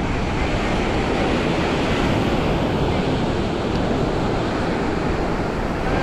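Ocean surf washing onto a sand beach, a steady rush of waves, with wind rumbling on the microphone.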